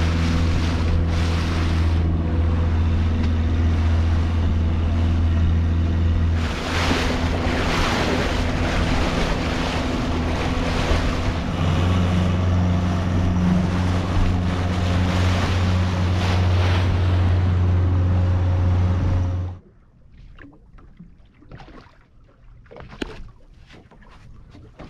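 Outboard motor of a small motorboat running at a steady cruising speed, with wind and hissing spray over the hull. About twenty seconds in, the engine sound cuts off suddenly, leaving only faint lapping water and small knocks as the boat drifts.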